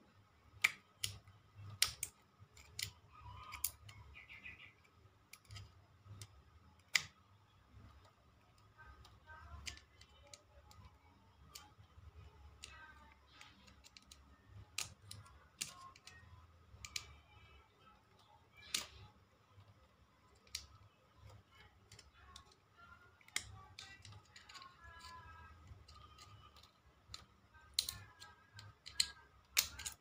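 Small screwdriver prying at the plastic housing of a refrigerator compressor's start relay and overload unit: irregular sharp clicks and taps of plastic, scattered throughout, as the casing is worked open.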